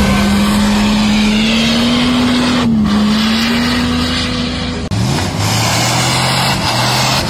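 Off-road vehicle engine running steadily under load; about five seconds in its pitch falls to a much lower steady note.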